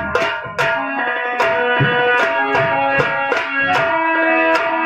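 Live nautanki folk music: a harmonium holds a sustained melody over a nagara kettle drum struck with sticks and a hand-played dholak, the drum strokes falling in a steady rhythm.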